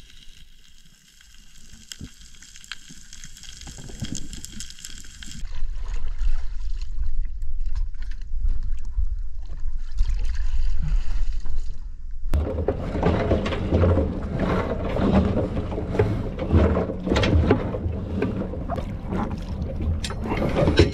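Underwater reef crackle for the first few seconds. Then water sloshing and gurgling against a boat hull with the camera at the waterline. About twelve seconds in, this gives way to loud splashing and knocking as the anchor and its rope are hauled up over the bow.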